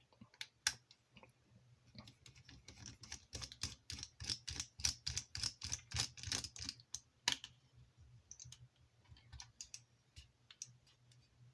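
Light clicks and taps of a small screwdriver working on the plastic parts and tiny screws of a Wi-Fi hotspot. A quick run of sharp clicks, several a second, comes about two seconds in and lasts some five seconds, with fainter scattered taps after it.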